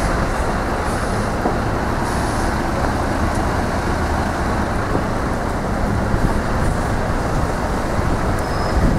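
Steady city-street traffic noise, with the engine of a single-decker city bus running close by.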